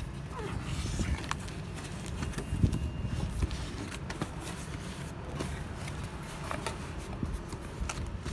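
Cardboard box being opened and handled: flaps folded back, with rustling, scraping and scattered clicks and taps of cardboard, over a steady low rumble.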